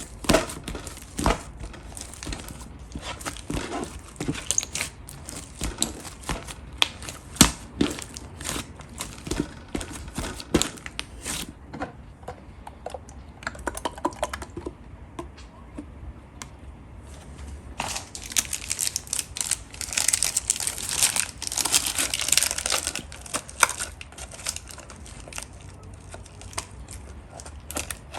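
Hands playing with pastel pink slime: squishing and stretching it, with many sharp clicking pops. After a quieter spell comes a dense run of crackling, then scattered clicks again near the end.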